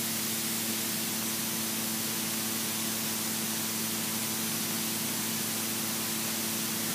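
Steady hiss of a light aircraft's headset intercom and radio audio feed between transmissions, with a steady low hum from the Robin DR400's engine underneath.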